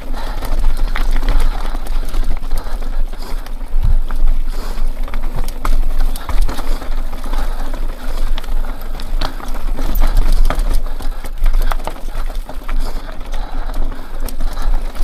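Mountain bike rattling and clattering over a rough, rocky trail, with many sharp knocks from the bike and a constant low rumble on the microphone.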